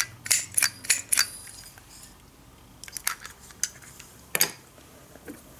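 Clicks and light knocks of a wooden toy front loader being picked up and handled: a quick run of sharp clicks in the first second or so, then a few single clicks about three and four and a half seconds in.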